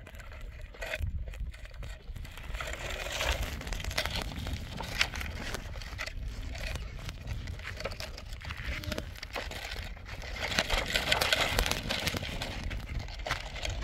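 Rustling and crinkling handling noise with many small clicks and crackles over a low rumble, louder for a couple of seconds about ten seconds in.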